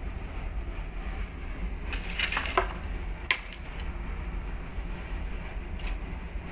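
Wooden spatula clicking and scraping against a pan while tossing frozen bitter gourd slices with onion and chillies: a quick cluster of clicks about two seconds in and a single sharper knock a second later, over a steady low rumble.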